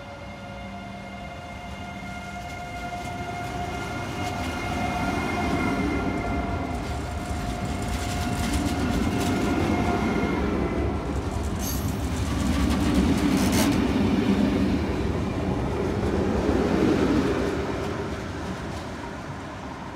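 SJ X40 double-deck electric multiple unit running slowly past on the platform track. A whine that drifts slightly down in pitch fills the first half, then wheel rumble with a few clicks over the rail joints builds, is loudest about two thirds of the way through, and fades near the end.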